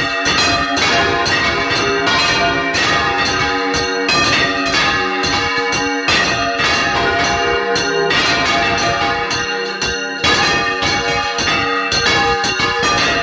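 Five church bells swung full circle together (a Valencian general volteig). Their clappers strike in a dense, continuous, overlapping peal of long-ringing tones, heard close up inside the belfry.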